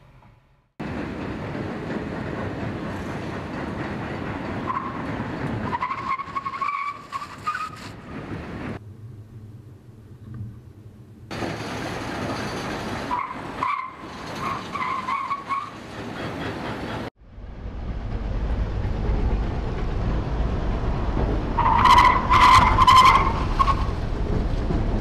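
Tesla Model S stopping hard from about 100 km/h, its tyres squealing in short broken chirps over a steady rush of road and wind noise. Three such stops are heard, the sound cutting abruptly from one to the next, with the loudest squeal in the last, near the end.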